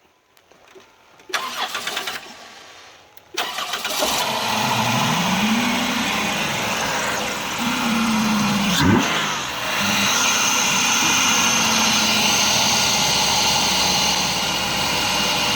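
Dodge Grand Caravan's 3.8-litre V6 cranking and catching about three and a half seconds in, revved up and down twice, then settling into steady running. A loud hiss of air being drawn in through the open cone filter of the short ram intake runs over it.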